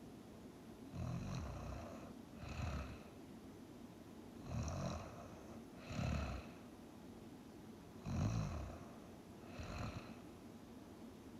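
A person snoring while asleep: six rough snores in three pairs, the two of each pair about a second and a half apart, with a longer pause between pairs.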